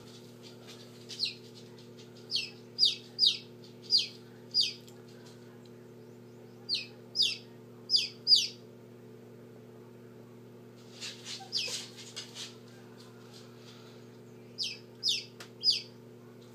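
Silkie chick peeping from its pipped egg: short, high, falling peeps in runs of three to six with pauses between, over the steady hum of the incubator.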